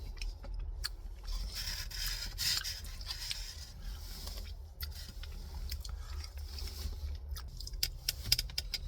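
Eating sounds: food and its packaging being handled, with scraping and rubbing noises and a few short clicks near the end.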